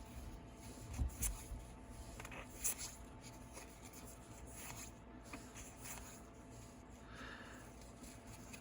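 Magic: The Gathering trading cards being handled and flipped through one after another: faint sliding and soft taps of card stock, with a few sharper swishes in the first three seconds.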